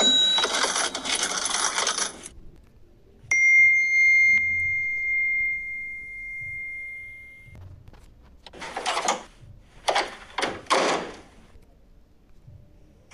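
A string of metallic sound effects: a clattering jingle lasting about two seconds, then a single bell-like strike that rings out for about four seconds, then three or four short metallic jingles near the end.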